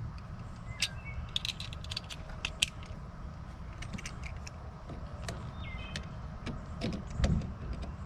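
Repeated sharp clicks and light rattling of a truck's plastic interior door handle and latch parts being worked by hand, with a few brief high squeaks, over a steady low hum.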